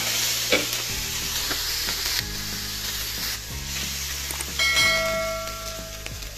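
Pav bread rolls sizzling in butter and oil on a hot iron tawa as they are pressed down to toast, a steady frying hiss. About two-thirds through, a short ringing chime sounds over it, with soft background music underneath.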